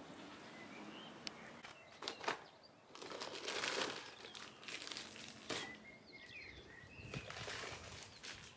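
Quiet garden ambience: a few short bird chirps in the middle and later part, with a burst of rustling about three to four seconds in and a few sharp clicks.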